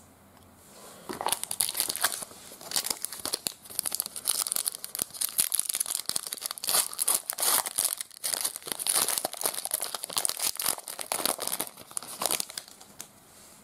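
Foil trading-card pack wrapper being torn open and crinkled in the hands: a dense, crackling run of tearing and crumpling that starts about a second in and stops shortly before the end.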